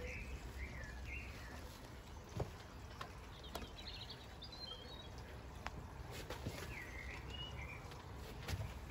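Garden ambience: small birds chirping in short bursts every few seconds over a steady low background rumble, with a few faint short knocks, the clearest about two and a half seconds in.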